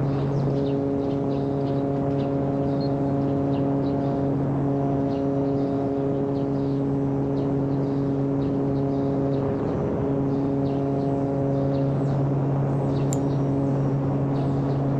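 Electric motor and propeller of a radio-controlled seaplane running at a steady cruise throttle: a constant hum that wavers slightly in pitch a few times.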